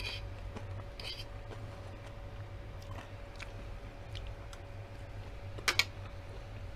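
Mouth sounds of someone chewing a forkful of nachos (tortilla chips topped with avocado and mango), close to the microphone, with a few faint clicks and two sharper clicks close together near the end. A steady low hum runs underneath.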